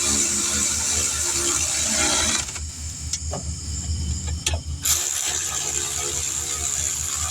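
A vehicle engine running steadily, dropping back for a couple of seconds midway while a few sharp clicks sound, then running on.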